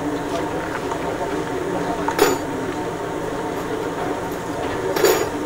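Two sharp metal clanks, about two seconds in and again near the end, from tools and parts being worked on while a military vehicle is refitted, over a steady background hum.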